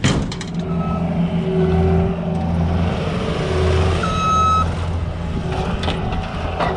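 Manitou skid steer's diesel engine running, swelling and easing in speed, with a sharp knock at the start and one short high beep about four seconds in.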